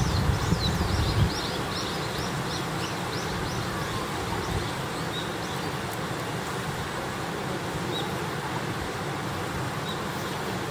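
Campfire burning with a steady hiss, with a low wind rumble in the first second. Over it, during the first half, a fast run of short, high, falling chirps, about three a second.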